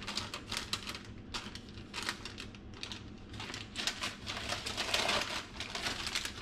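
A sheet of baking paper rustling and crinkling as hands press and peel it over sticky pie dough, an irregular run of papery crackles that is loudest about five seconds in.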